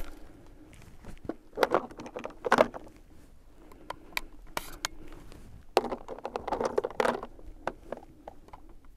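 Shotgun shells being pushed into the tube magazine of an Emperor Arms Mogul Ultra semi-auto 12-gauge, with gloved handling noise: scattered clicks and rattles. There are two busier bouts of it, about a second and a half in and again around six to seven seconds.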